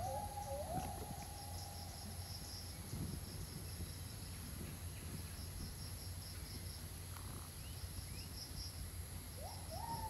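Tropical forest ambience: faint pulsing insect chirps over a low steady hum, with a drawn-out whistle-like tone that rises and then holds steady for about three seconds at the start, returning near the end.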